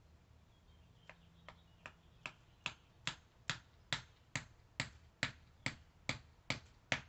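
A hand tool striking in a steady rhythm: fifteen sharp, evenly spaced knocks, about two and a half a second. They start about a second in and grow louder.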